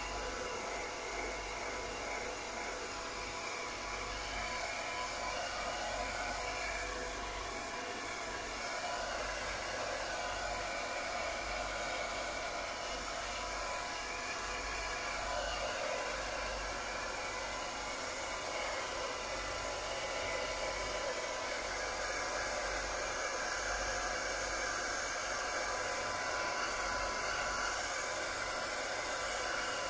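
Handheld hair dryer running steadily, blowing on a wet kitten's fur to dry it. Its noise changes in tone about a third and again about halfway through.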